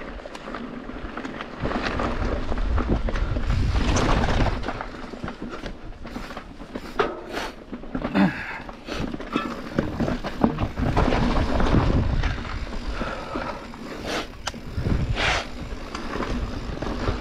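Mountain bike descending a dirt singletrack: steady tyre rumble and wind buffeting the microphone, getting louder about two seconds in, with sharp clatters and knocks from the bike over bumps, clustered in the middle and near the end.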